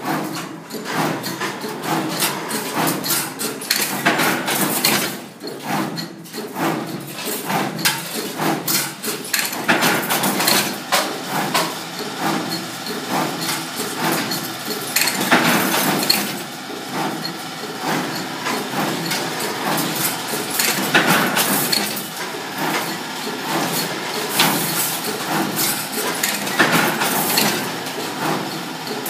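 CNC wire bending machine running, with irregular metallic knocks and clanks over steady mechanical noise as it feeds and bends steel wire.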